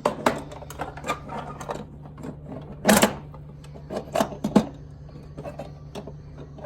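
Small toy pieces from a doll house being handled: irregular clicks and knocks, with a louder knock about three seconds in and a few more a second later.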